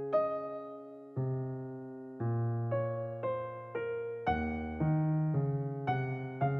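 Slow, gentle solo piano music: chords and single melody notes struck one after another, each fading before the next.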